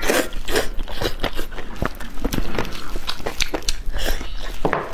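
Close-miked eating of a sauce-covered roast chicken: chewing and tearing the meat, heard as a dense run of quick clicks and smacks.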